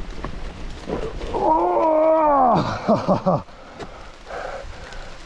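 Mountain bike's wet disc brakes howling for about two seconds, the pitch rising and then falling away, followed by a few shorter squeals. Rain-soaked brake rotors and pads honk like this under braking.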